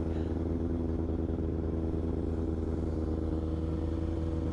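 Kawasaki ZX6R stunt-build motorcycle's inline-four engine running steadily, holding one even engine speed.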